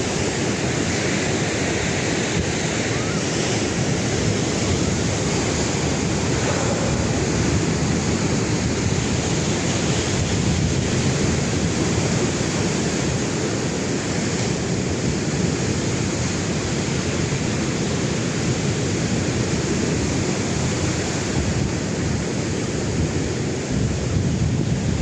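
Sea surf washing steadily on the shore, a continuous rushing of waves, with wind rumbling on the microphone.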